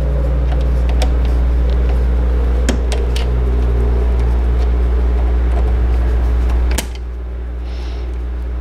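Sewing machine's electric motor humming steadily under light clicks of work on the machine's mechanism. About two-thirds through, a sharp click, and the hum drops to a lower level.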